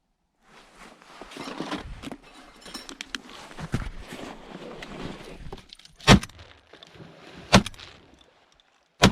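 Irregular crunching and rustling, like footsteps and movement on crusty snow and ice, with three sharp, loud knocks about a second and a half apart near the end.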